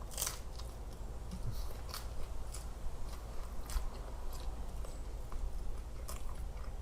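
A person chewing and biting into pizza close to the microphone, with scattered crisp crunches and mouth clicks over a steady low hum.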